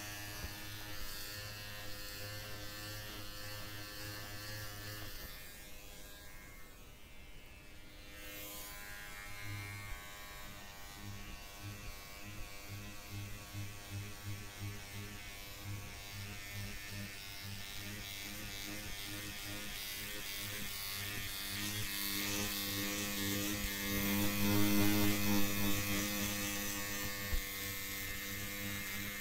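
Electric hair clippers buzzing while trimming hair. The buzz stops about five seconds in, comes back as a stuttering, uneven buzz, and is louder for a couple of seconds near the end.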